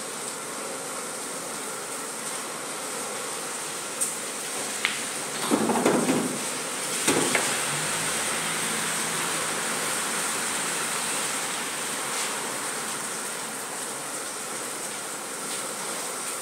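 Pool shot on a coin-operated table: the cue tip strikes the cue ball about four seconds in, a sharp ball-on-ball click follows, then a cluster of knocks as an object ball is potted, with a faint rolling afterwards. A steady high hiss lies under it all.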